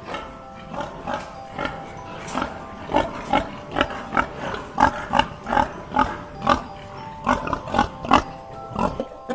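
Short animal grunts, repeated about two or three times a second, over background music with held chiming tones.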